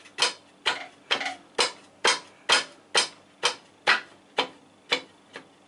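A steady series of sharp metallic clicks, about two a second, as the tilting table of an EMCO BS-2 band saw is worked from below. The clicks grow fainter near the end.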